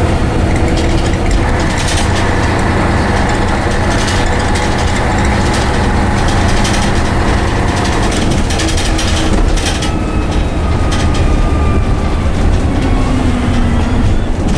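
Scania N113CRB bus with a Voith automatic gearbox heard from inside the cabin, its diesel engine and driveline running under way with a steady drone and whine. The note drops about eight seconds in and then climbs again, over frequent body and window rattles.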